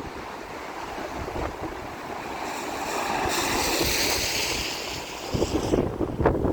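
Wind buffeting the microphone in low rumbling gusts, with a hiss that swells through the middle and cuts off suddenly near the end, followed by heavier buffeting thumps.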